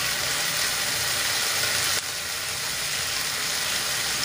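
String beans sizzling in soy sauce in a frying pan: a steady hiss with a faint low hum underneath, dipping slightly about halfway through.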